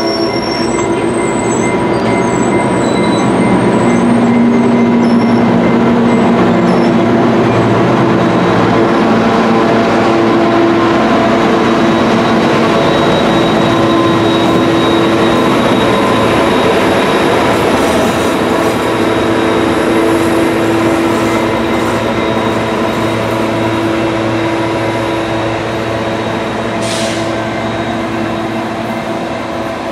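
A Trinity Railway Express commuter train passing close by: bilevel coaches rolling over the rails, then the two coupled diesel locomotives running as the train pulls away, with a steady hum of held tones over the rumble. The sound eases off slightly near the end as the train moves off.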